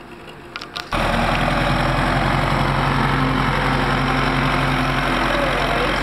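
Tractor's diesel engine running steadily at close range, cutting in abruptly about a second in after a few faint clicks.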